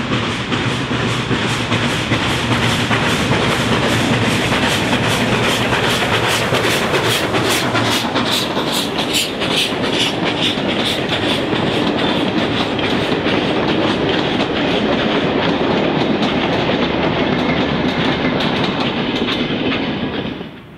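Steam-hauled passenger train passing close by, its carriage wheels clicking in a fast, even rhythm over the rail joints. The sound drops away abruptly at the end.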